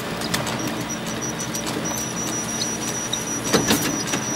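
Glitchy electronic intro sound effects: a steady static hiss over a low hum, with a broken high-pitched whine and scattered digital clicks, the loudest pair of clicks near the end.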